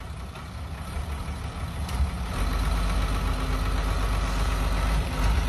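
An engine running with a steady low hum, getting louder about two seconds in.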